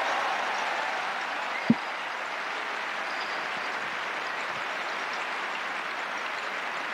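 Tennis crowd applauding in a steady wash, swelling at the start and then easing slightly. A single dull thump stands out about two seconds in.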